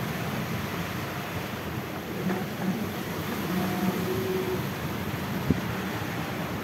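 Steady rushing of wind and water aboard a sailing yacht in a squall, with a single sharp knock about five and a half seconds in.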